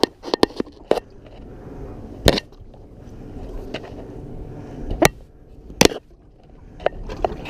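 Fishing rods and a reel being handled against the boat's rod holders and rail while a tangled line is sorted out: irregular sharp knocks and clicks, about nine of them, with the loudest about two, five and six seconds in.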